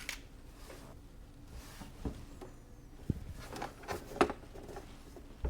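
Faint scattered clicks and small handling taps of hookup wire being fitted into the spring terminals of an electronics project kit.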